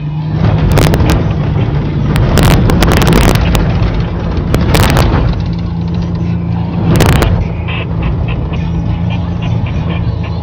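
A 4x4's engine running steadily under load as it drives across soft desert sand, heard from inside the cabin, with a low, steady hum. Several brief loud bursts of noise cut through it in the first half and once more about seven seconds in.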